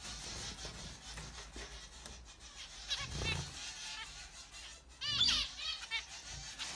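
Caged finches chirping: a short run of quick calls about three seconds in, then a louder cluster of repeated calls about five seconds in.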